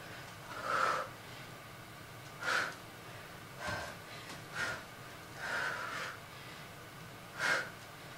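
A woman's hard breathing from exertion while doing push-ups: about six short, forceful breaths a second or so apart.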